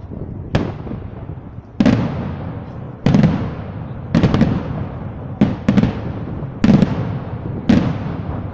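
Aerial firework shells bursting in a display: about eight sharp bangs, roughly one a second, each trailing off in an echo.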